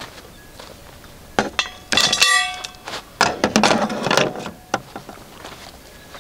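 Hard objects knocked and clinked together: a few knocks, then a loud ringing clink about two seconds in, followed by a second burst of clattering.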